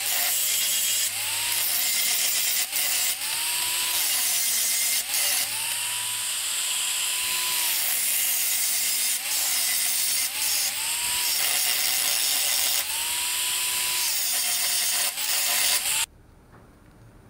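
Electric angle grinder grinding a weld bevel into the end of a steel U-channel, the motor's whine dropping each time the disc bites into the steel and climbing back as the load eases. It cuts off suddenly near the end.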